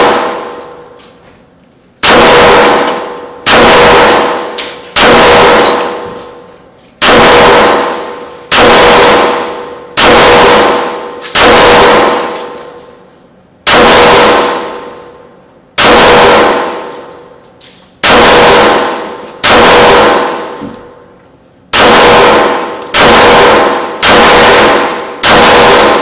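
Shadow Systems MR918 9mm pistol firing about fifteen single shots at a slow, deliberate pace, roughly one every one and a half seconds. Each shot is loud and rings on in the concrete-block indoor range.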